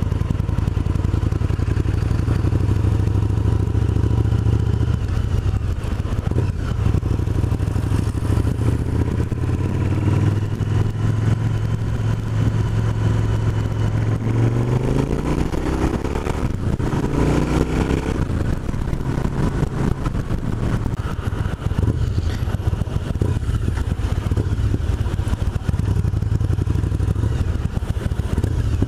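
Yamaha BT1100 Bulldog's air-cooled V-twin running through an IXIL aftermarket exhaust at low speed. The note holds steady for the first half, then rises as the engine revs up twice in the middle before settling back to a steady run.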